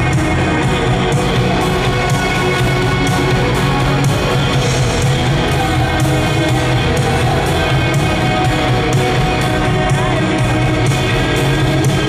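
Live rock band playing loudly: electric guitar, drums with regular cymbal and drum hits, and keyboards.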